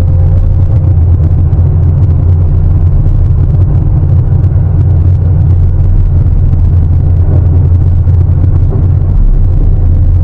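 Sany 750 hydraulic excavator's heavy diesel engine running steadily under load, a loud, even low rumble.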